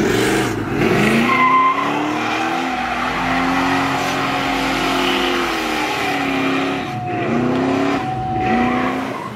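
Chevrolet Chevelle convertible doing a burnout: the engine revs up hard and holds high while the rear tyres spin and squeal, then the revs dip and climb twice more near the end.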